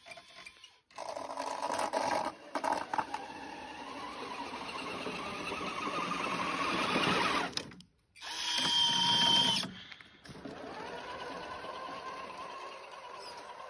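Electric motor and gearbox of a CEN Racing F-450 RC truck whining as it drives and pushes snow with its plow blade. It runs in surges: it builds for several seconds and stops sharply, gives one short louder burst, then runs on more evenly.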